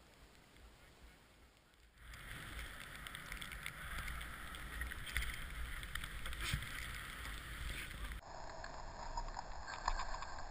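Snowboard sliding fast over packed snow: a steady scraping hiss with scattered crackles and a low rush of air over the camera's microphone, starting about two seconds in after a faint stretch. The sound changes abruptly about eight seconds in.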